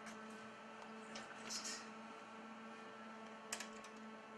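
Steady electrical hum from racks of studio equipment, with a brief hiss about a second and a half in and a faint click near the end.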